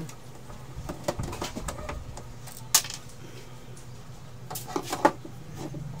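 A screwdriver and hands working on an Epson L3110 printer's plastic casing: a few scattered sharp clicks and knocks, the loudest about three seconds in and a cluster near five seconds.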